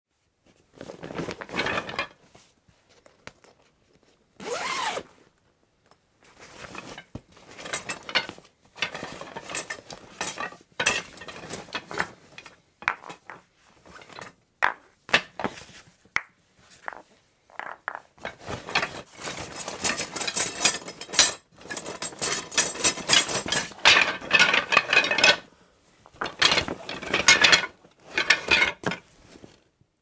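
Someone rummaging through a croquet bag, the gear inside knocking, clattering and clinking in irregular bursts with short pauses between. The handling grows busier and more continuous in the second half.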